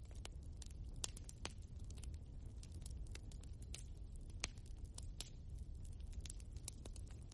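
Logs burning in a wood fireplace: irregular sharp crackles and pops, several a second, over a low steady rumble of the fire, with one louder pop about four and a half seconds in.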